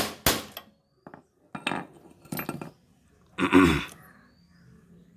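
Hammer striking metal, about six irregular clinking blows with the loudest a little past three seconds in: a new bearing race being driven into a Bajaj Chetak front wheel hub.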